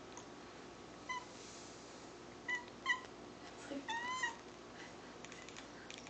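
Domestic cat making short, high chirping calls that sound like dolphin clicks: three quick chirps, then a longer one that bends up and down in pitch.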